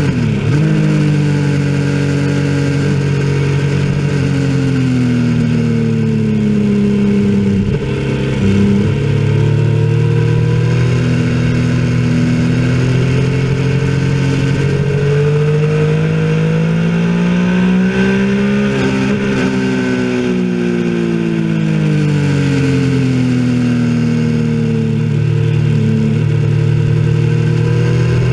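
Motorcycle engine at track speed, revs rising and falling through the gears, with quick drops in pitch near the start as it slows into a corner, over steady wind noise.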